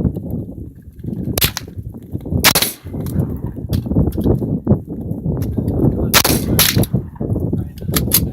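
AR-15 rifle firing single shots, about four or five spaced unevenly a second to several seconds apart, over a steady low rumble.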